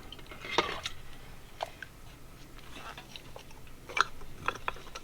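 Sparse light clicks and taps of small metal carburetor parts and hand tools being handled, the sharpest about four seconds in.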